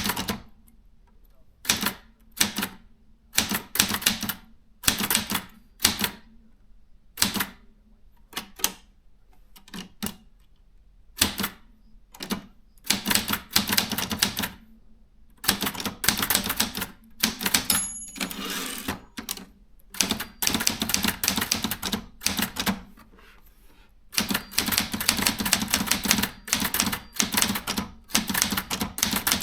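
Brother 440 TR typewriter being typed on: runs of rapid key strikes separated by short pauses, turning into nearly continuous typing for the last few seconds.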